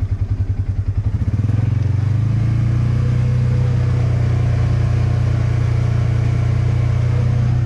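Polaris side-by-side's engine running with a low, pulsing beat, then picking up about a second and a half in and running steadily under throttle.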